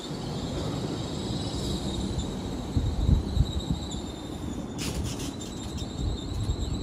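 LNER Azuma train moving slowly past along the platform, giving off a steady high-pitched whine over a low rumble. About five seconds in there is a brief hissing burst, after which the whine carries on with a slight pulsing.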